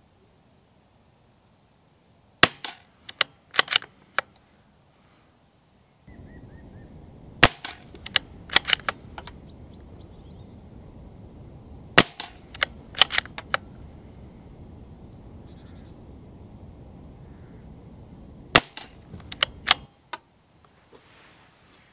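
CZ 457 Royal .22 LR bolt-action rifle fired four times, several seconds apart, with Sellier & Bellot rimfire rounds that the chronograph shows as none subsonic. Each sharp shot is followed by a few quick metallic clicks as the bolt is worked to eject the case and chamber the next round. A steady low background noise runs through the middle shots.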